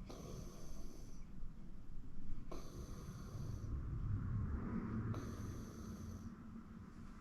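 A sleeping person snoring: a low, rough rumble with each breath. A high hiss comes in about every two and a half seconds and lasts about a second each time.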